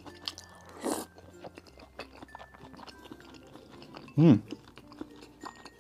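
Close-up chewing of a boiled dumpling coated in sesame-paste sauce: soft wet mouth clicks and smacks, with a short hummed "mm" a little after four seconds.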